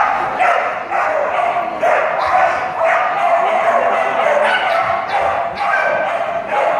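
A dog barking over and over, about two loud barks a second.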